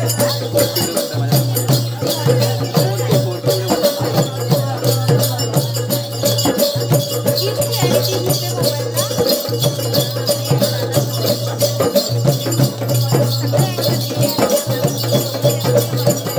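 Live Konkani folk percussion for a tamasha dance: two-headed barrel hand drums and a frame drum beating a fast, steady rhythm, with jingling bells over it. A steady low hum runs underneath.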